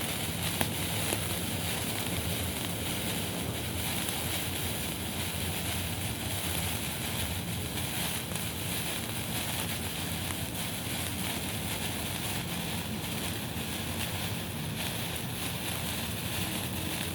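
Signal flare burning with a steady hiss and fine crackle, with a sharp pop about half a second in and a smaller one about a second in.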